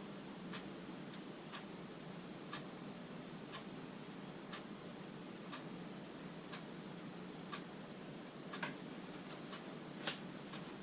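A clock ticking about once a second over a steady low hum, with a few irregular extra clicks near the end.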